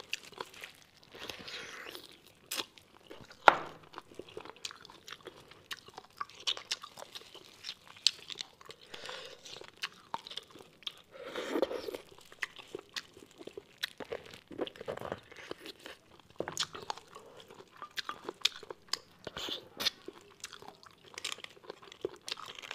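Close-miked eating sounds: chewing mouthfuls of braised beef bone marrow, with many short sharp clicks throughout and a louder click about three and a half seconds in.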